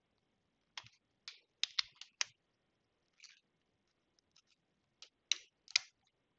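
Sharp clicks of a MacBook Pro butterfly-switch key as a keycap is fitted onto a freshly replaced butterfly mechanism and the key is pressed to test it. The key works fine. About six quick clicks come a second or two in, then a few faint ones, then three or four louder clicks near the end.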